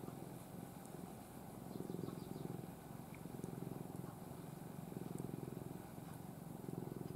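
Domestic cat purring steadily while being stroked, the low rapid rumble swelling and easing every second or two.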